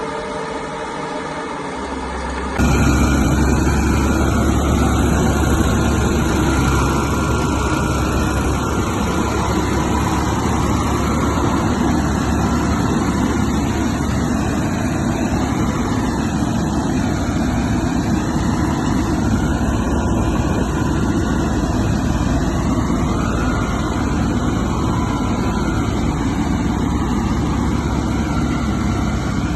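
Caterpillar bulldozer's diesel engine running under load with a heavy, steady rumble while it pushes rock. The sound jumps suddenly louder about two and a half seconds in.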